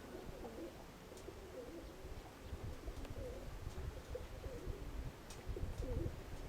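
Domestic pigeons cooing repeatedly, with wind buffeting the microphone.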